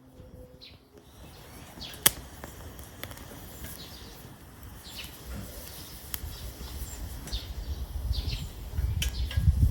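Wood fire in a Solo Stove Titan secondary-combustion stove, crackling with a few sharp pops, while birds chirp. A low rumble builds near the end.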